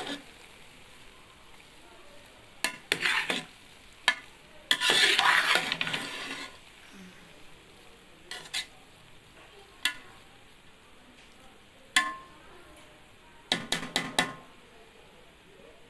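A spoon stirring and scraping cooked jaggery rice around a metal pot in several separate strokes, the longest and loudest about five seconds in. The rice's cooking water has cooked off, so the grains are being turned dry.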